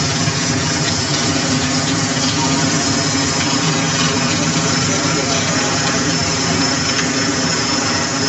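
Vehicle engine idling with a steady, unchanging drone.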